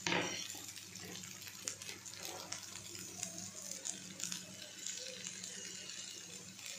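Stir-fried noodles sizzling quietly in a hot frying pan, a steady hiss with fine crackles, after a brief knock right at the start.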